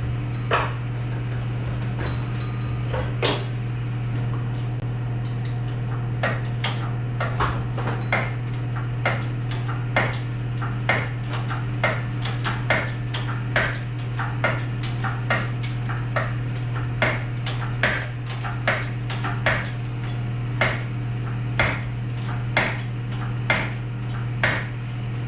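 Sharp metallic clicks or taps repeating evenly about once a second, from a hand tool worked against metal, over a steady low hum.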